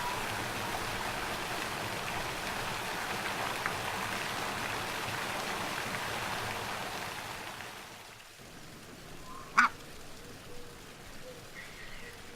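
Animal sounds: a dense rushing haze with faint scattered calls that fades out about eight seconds in. A second and a half later comes one short, loud call, followed by faint thin calls.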